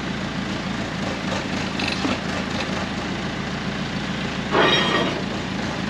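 Crane engine running steadily while lifting a generator into a boat's engine room, with a brief louder clatter about four and a half seconds in.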